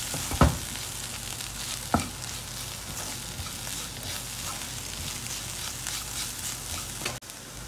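Onions and ground spices sautéing on low heat in a nonstick wok, a steady sizzle with a wooden spatula stirring and scraping through them. The spatula knocks sharply against the pan twice in the first two seconds.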